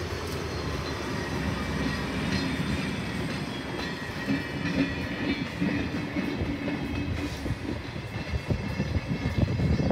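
A TPCF diesel railcar set passing close by, its engine running with a steady low rumble. Near the end its wheels click over the rail joints.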